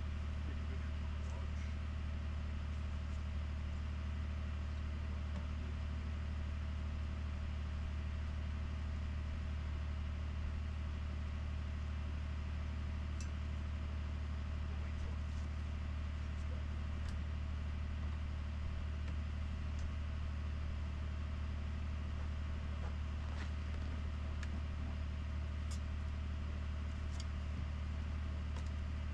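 Ford F-150 PowerBoost's 3.5-litre twin-turbo V6 idling steadily during a cold start at about −21 °C, still warming up before the hybrid system lets it shut off. A few faint ticks and scrapes come through now and then as snow is brushed off a vehicle.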